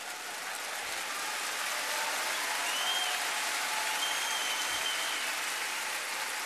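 Large audience applauding, swelling over the first couple of seconds and easing off near the end.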